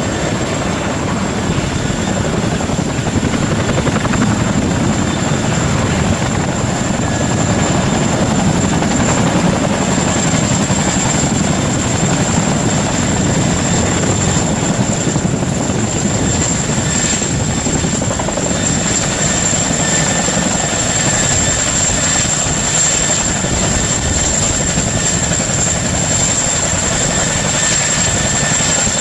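Twin-turbine, tandem-rotor Chinook helicopter running continuously, with a dense rotor chop and a steady high whine above it.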